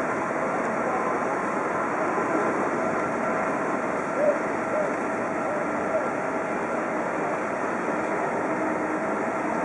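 Boeing 777 jet engines running at low power as the airliner taxis: a steady rush with a faint whine.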